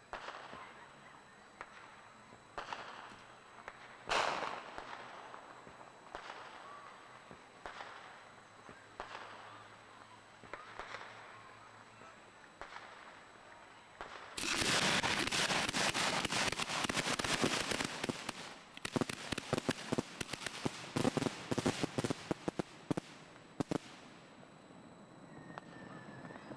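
Fireworks firing from the ground: single sharp bangs every second or two, then, about halfway through, several seconds of dense, loud crackling, followed by rapid bursts of crackle.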